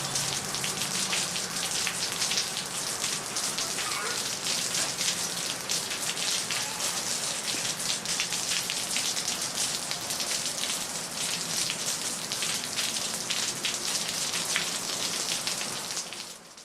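Steady rain falling on city street pavement, a dense hiss full of fine drop ticks with a faint low hum underneath; it fades out near the end.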